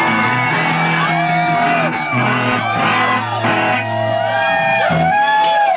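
Live punk rock band playing loud: electric guitar over held low bass notes that change every second or so.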